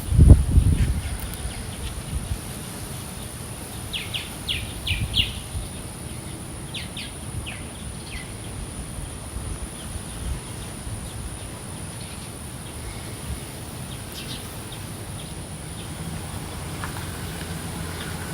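Outdoor ambience: a steady low rumble with a faint, steady high insect whine, and short bird chirps in two clusters, about four and seven seconds in. A low thump at the very start.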